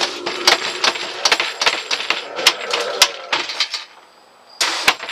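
Homemade pneumatic monster-in-the-box prop firing at 40 PSI: its plywood lid is jerked up and down by an air cylinder, giving a rapid, irregular run of bangs and rattles that lasts nearly four seconds. A short hiss of air follows near the end.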